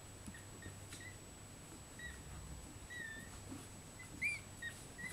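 Two-week-old Maltese puppy giving a series of faint, high-pitched squeaks and whimpers, short cries every second or so, the loudest about four seconds in.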